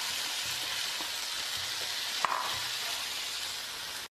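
Chopped onions sizzling in hot oil in a nonstick frying pan, stirred with a wooden spatula, with one sharp tap about two seconds in. The sizzle cuts off suddenly near the end.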